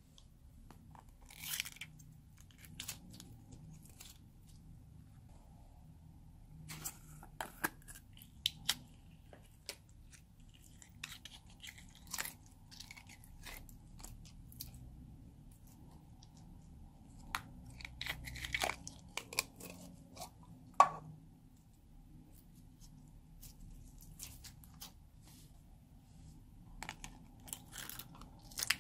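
Small hard plastic slime containers being handled and opened by hand: scattered crackles and clicks of the plastic cases and lids, in short clusters, with one sharp click about two-thirds of the way through the loudest.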